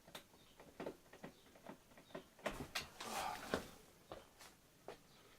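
Scattered light clicks and knocks of hands handling the parts of a wind-up gramophone, with a short rustle and a few louder knocks about two and a half to three and a half seconds in.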